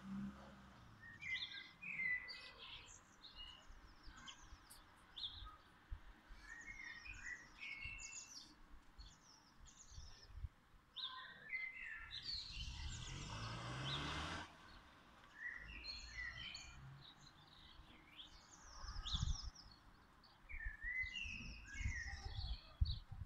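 Songbirds singing and chirping in short repeated phrases over faint background noise. Around the middle, a rush of noise with a rising low hum lasts about two seconds, and there are a few low rumbles near the end.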